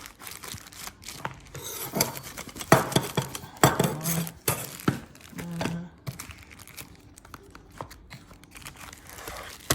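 Plastic wrappers crinkling and tearing as stainless steel dinner knives are unwrapped, with sharp clinks of the metal knives among the rustling.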